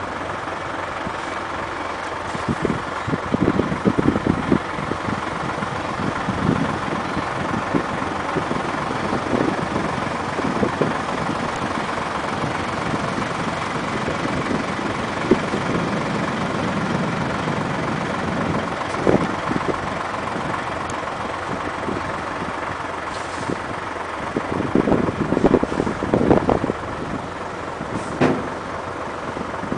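Dump truck's diesel engine running steadily, with irregular low thumps and a few sharp knocks over it.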